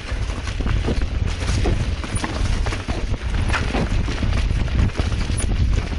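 Mountain bike rattling and knocking over roots and rocks on a dirt trail, irregular clacks from the frame and chain on each hit, over a steady rumble of wind on the helmet camera's microphone.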